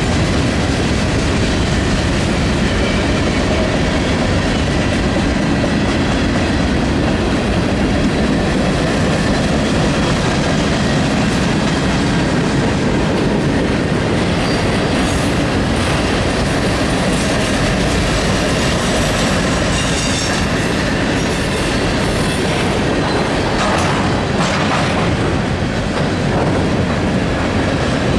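Train cars rolling past: a steady rumble of steel wheels on the rails with clickety-clack over the rail joints, and faint wheel squeal in the second half.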